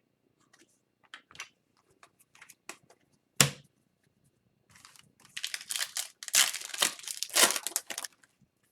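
A few light ticks of cards being handled and one sharp knock, then a hockey card pack's foil wrapper being torn open and crinkled for about three seconds.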